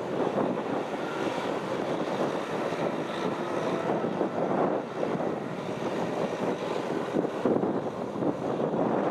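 Kubota M6040SU tractor's diesel engine running steadily as it plows wet mud: a continuous, even drone.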